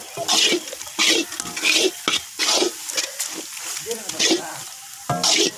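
A ladle scraping and stirring banana-flower and egg fry in a pan, in irregular strokes about one or two a second, over a light sizzle of frying.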